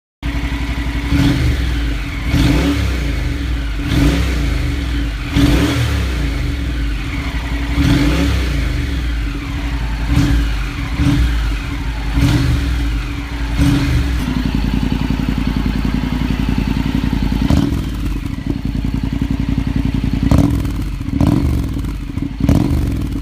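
Honda NC750X parallel-twin engine idling through its exhaust and revved in a run of short throttle blips, about one every second and a half. About fourteen seconds in it settles to a steadier idle, with a few more blips near the end.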